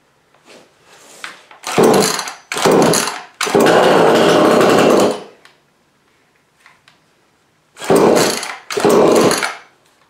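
Small NEOTEC two-stroke chainsaw being pull-started cold on full choke: five hard yanks of the recoil starter. On the third, about three and a half seconds in, the engine fires for a second or two and shuts right off.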